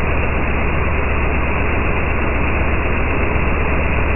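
Parkside PVKO 50 B2 belt-driven air compressor running with its cover off: motor, belt and pump make a steady drone with a strong low hum. It sounds deep and muffled, slowed down with the slow-motion footage.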